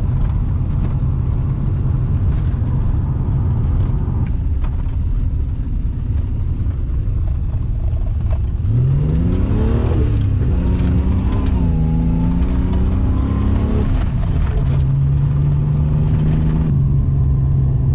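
Holden Commodore engine and road noise heard from inside the moving car: a steady low drone, with the engine revving up about nine seconds in as the car accelerates, holding for a few seconds, then dropping to a lower steady hum about fourteen seconds in. The car is running without its earlier driveline vibration, the loose tail shaft bolts having been tightened.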